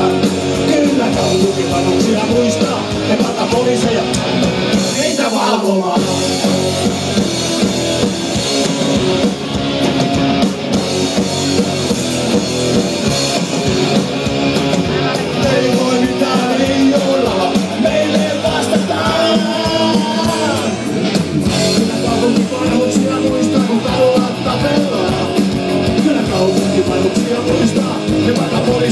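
Punk rock band playing live through a PA: distorted electric guitars, bass and drums, with sung vocals. The bass end drops out briefly around five seconds in, then the full band comes back.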